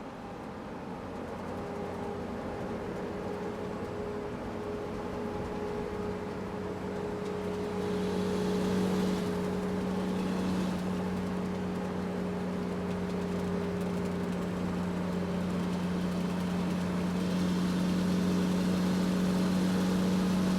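Scania R580 truck's V8 diesel engine running with a steady deep hum, slowly growing louder.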